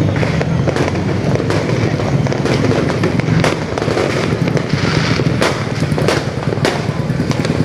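Many fireworks and firecrackers going off at once: a dense, continuous run of overlapping sharp bangs and crackles, with a steady low rumble underneath.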